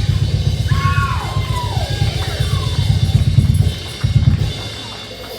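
Live gospel band of drum kit and bass with a saxophone playing sliding falling phrases. The band winds down to a final hit about four seconds in, then fades out.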